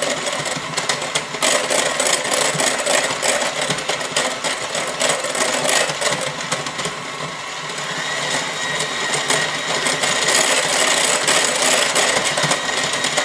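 KitchenAid electric hand mixer running steadily at a raised speed, its beaters whirring through wet cake batter in a glass bowl. A steady high whine comes through more clearly after about eight seconds.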